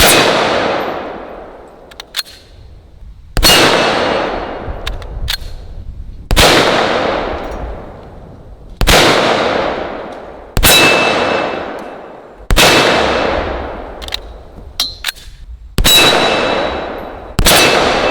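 Desert Eagle .44 Magnum pistol fired eight times, about two to three seconds apart, at a steel gong target. Each shot is followed by the gong ringing and slowly fading.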